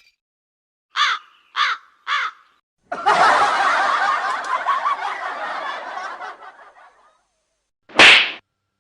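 A run of meme sound-effect clips: three short laugh-like calls in quick succession, then about four seconds of dense, noisy laughter-like sound that fades out, then a single short loud burst near the end.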